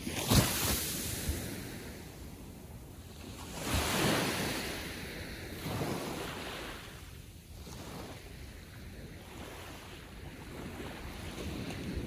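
Gentle ocean waves lapping onto the beach: a sharp splash about half a second in, a wave washing in around four seconds and a smaller one around six, with a steady wash of surf between them.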